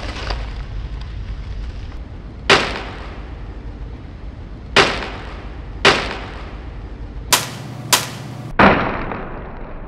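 Six sharp bangs, unevenly spaced, each with a brief echoing tail; the last three come close together near the end.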